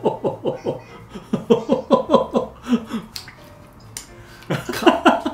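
Men laughing in two runs of quick, falling 'ha-ha' pulses, then a breathy, strained vocal burst near the end, a reaction to the heat of freshly grated wasabi.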